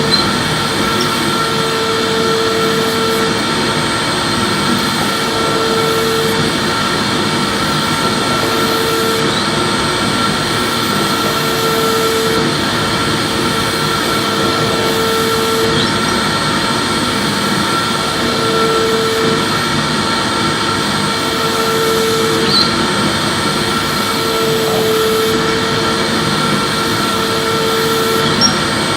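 Electric vacuum cleaner running steadily while being swept back and forth, with a note that comes and goes about every two to three seconds over a steady hum.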